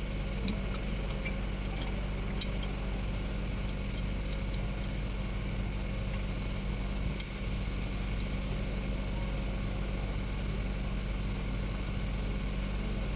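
A steady engine hum like a vehicle idling, with a scattering of light, sharp metallic clinks, as of tools on metal, in the first several seconds.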